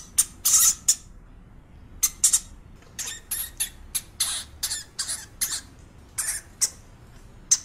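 Hamster squeaking: a series of short, high-pitched squeaks in irregular clusters, with a brief pause about a second in.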